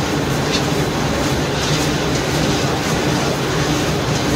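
Caramel popcorn coating kettle running, its motor-driven stirring arm churning popped corn around the kettle: a steady mechanical rumble with a low hum.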